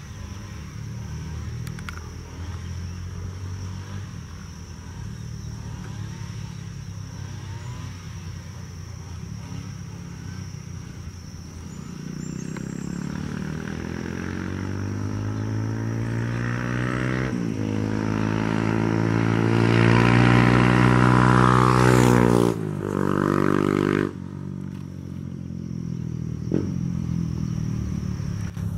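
Airbus A320 jet engines on final approach: a low rumble that grows louder as the airliner nears, with a whine that sweeps in pitch. It peaks about twenty seconds in, then drops off abruptly.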